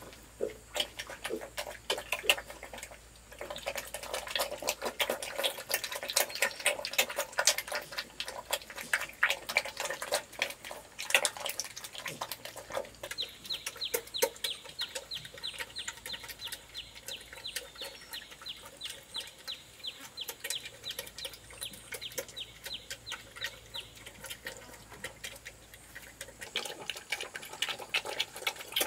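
Piglets eating wet feed mash from a metal bowl: a constant patter of wet smacking and slurping clicks, settling into a steady quick rhythm of chewing smacks through the middle.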